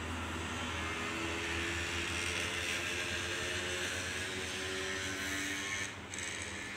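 Aquarium equipment running: a steady low hum with an even hiss, dipping briefly near the end.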